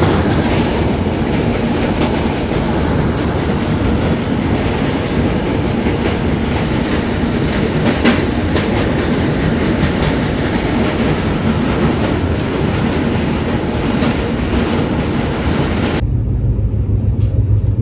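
Passenger express train running over a river bridge, heard from an open coach door: a loud, steady rush of wheel and track noise with scattered sharp knocks. About 16 s in it cuts to the duller, steady low hum heard inside the coach.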